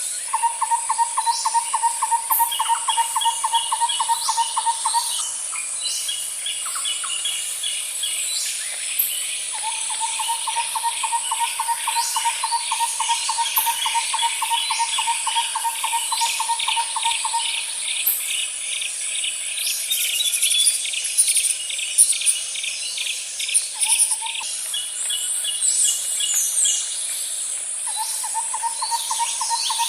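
Nature ambience of birds and insects: a steady high insect drone, long even trills that run for several seconds at a time and recur, and scattered bird chirps and calls.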